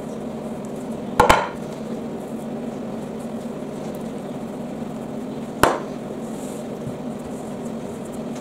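Rolling pin working pastry on a floured stone worktop, with two sharp knocks of the pin against the worktop: a double knock about a second in and a single one a little past halfway. A steady hum runs underneath.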